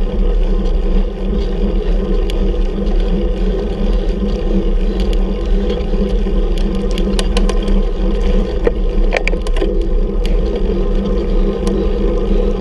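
Steady rumble of wind and road noise on a bicycle-mounted camera's microphone while climbing, with scattered light clicks and rattles.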